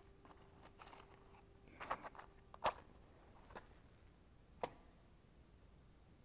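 A match struck on its box: a couple of short scrapes, then a sharp strike as it lights about two and a half seconds in, and a single light click a couple of seconds later. All of it is faint.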